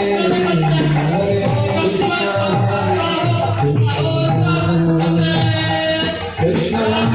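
Devotional chanting sung to music, with jingling percussion keeping the beat.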